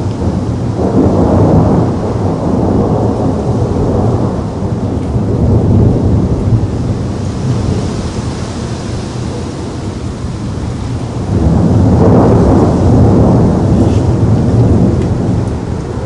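Thunderstorm: rolling thunder in two long low swells, one starting about a second in and another near the twelve-second mark, over a steady hiss of rain.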